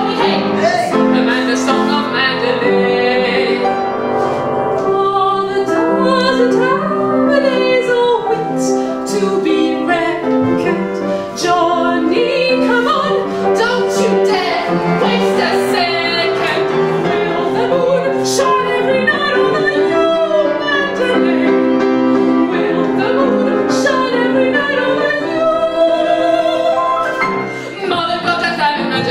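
A woman singing a cabaret song with a wavering vibrato, accompanied by an upright piano.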